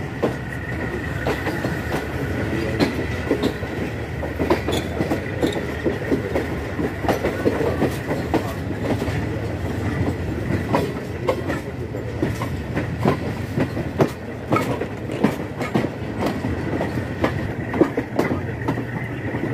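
Passenger train running, heard from aboard a coach: a steady low rumble with irregular clacks and knocks from the wheels over the rail joints. A faint high whine sounds over it in the first few seconds.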